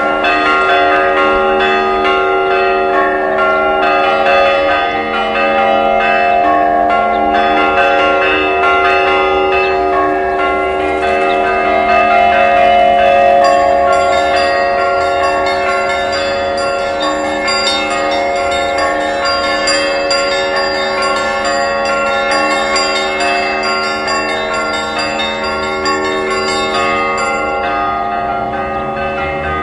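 Church bells ringing continuously, several bells of different pitches struck in quick, overlapping succession so their tones hang and blend. About thirteen seconds in, smaller high-pitched bells join with a fast run of strikes.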